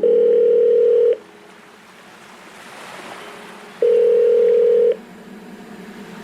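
Telephone call-progress tone: two long steady beeps of about a second each, near the start and again nearly four seconds in, like a ringback tone, with faint hiss between them.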